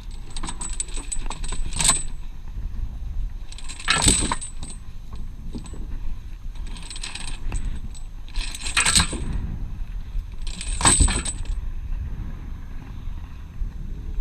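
Metallic jingling and clinking in five short bursts, each lasting about half a second to a second and a half, over a low steady rumble.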